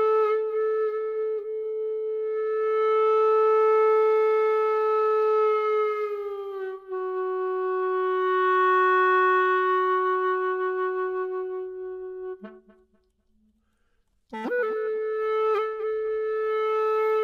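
Hulusi (Chinese gourd flute) playing long held notes: a steady note slides down to a slightly lower one about six seconds in and holds. Near the middle it stops briefly with a short low note, then a long note starts again.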